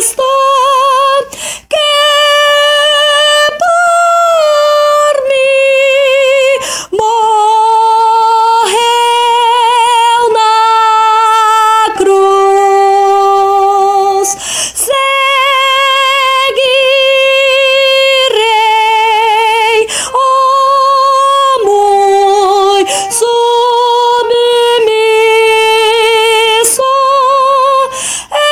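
A solo soprano voice singing the soprano line of a four-part hymn, one note at a time, each note held with a light vibrato and short breaks between phrases.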